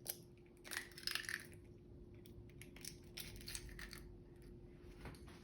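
A raw egg being cracked and its shell broken apart over a bowl: a few faint, short cracking and crunching sounds, about a second in and again around three seconds.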